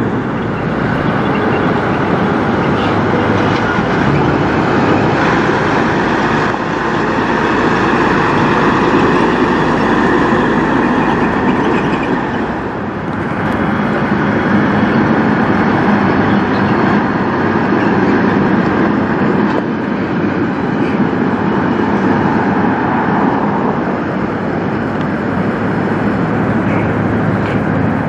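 Semi tractors' diesel engines running as tractor-trailers pull slowly away, a steady heavy drone. The level dips briefly about halfway through, and then a second truck's engine carries on.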